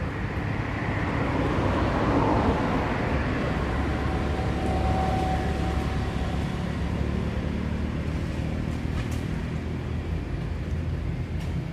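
A motor engine running with a steady low hum, swelling a little about two seconds in.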